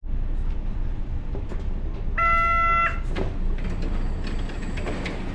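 Train doors opening at a station stop: a single electronic door tone sounds for under a second about two seconds in, then the doors slide open with a clunk, over the steady noise of the carriage.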